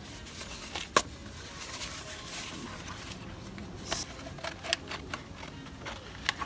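A sheet of 3M DI-NOC carbon-fibre vinyl wrap film being handled: light crinkling with several short sharp clicks, the loudest about a second in.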